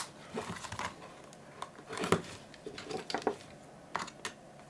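Small scattered clicks and scrapes of a hand tool prying at the recessed top plate of a pink Sanyo point-and-shoot digital camera, trying to work it back into place.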